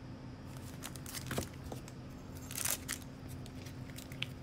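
Quiet handling noises: scattered small clicks and crinkles as a hard plastic graded-card slab and foil pack wrappers are moved about, over a faint steady hum.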